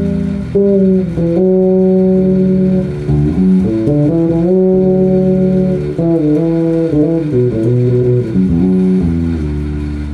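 Five-string fretless electric bass (an Elegee Alab P/J) played fingerstyle through a TC Electronic BH250 bass amp, on the jazz-bass pickup setting with the tone knob at maximum. It plays a melodic line of held notes, some sliding in pitch from one note to the next, and ends on a low note left ringing.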